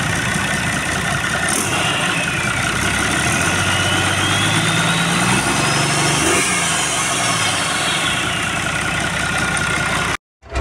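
Turbocharged truck diesel engine running out of the vehicle on the ground, revved up by hand at the throttle around the middle and let back down to a steady run.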